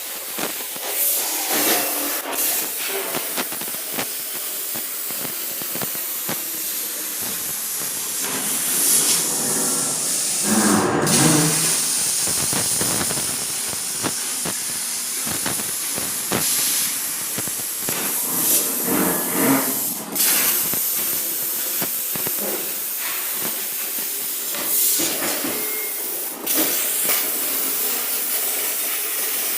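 CNC metal-cutting machine hissing steadily as it cuts steel for a gate, broken by a few brief dropouts and some louder rougher bursts.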